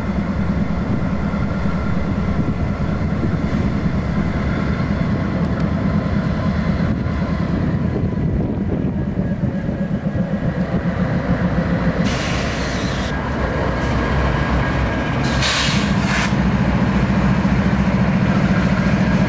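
Diesel freight locomotives, led by a GE Dash 9-40CW, running at low throttle as the train creeps forward: a steady low engine drone that grows louder from about sixteen seconds in. Two short hisses come about twelve and fifteen seconds in.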